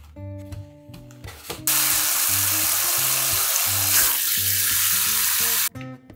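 Kitchen tap running hard onto frozen sailfin sandfish in a foam tray in the sink, a steady rushing splash for about four seconds that starts abruptly a couple of seconds in and cuts off sharply near the end. The fish are being covered with water to thaw.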